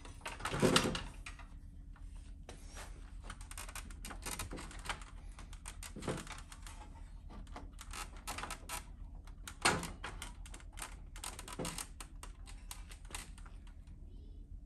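Handling noise from a metal billet grill insert being fitted into a plastic truck grill shell: a run of light clicks, taps and rattles. There are louder knocks about a second in and again just before ten seconds.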